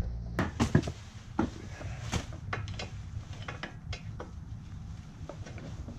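Metal hand tools clinking and knocking against the front upper control arm and its bolt as the arm is worked loose. There are a few sharp knocks in the first two seconds, then lighter, irregular ticks.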